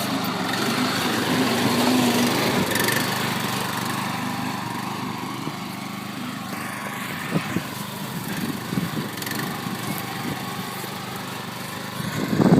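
Lawn mower engine running steadily as it is driven through mud, louder over the first couple of seconds and then settling, with a few sharp knocks about halfway through.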